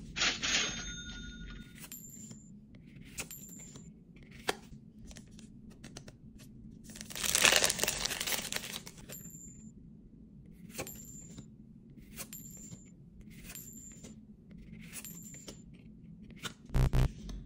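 Foil Yu-Gi-Oh booster pack being torn open, a crinkly rip of the wrapper about seven seconds in, the loudest sound. Around it, short card-flicking swishes about every second and a half as the cards are flipped through, and a few sharp knocks near the end.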